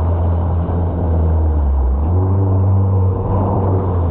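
Engine running with a steady low rumble, its pitch stepping up about two seconds in.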